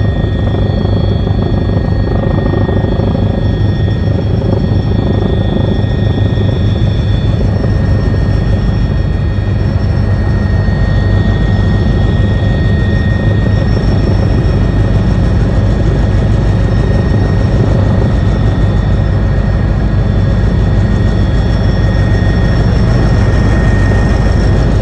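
Helicopter in flight, heard from inside the cabin: a loud, steady drone of engine and rotor with a strong low hum and a few steady high-pitched whines.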